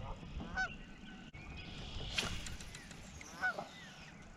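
A goose honking twice, faintly: short calls about half a second in and again near the end.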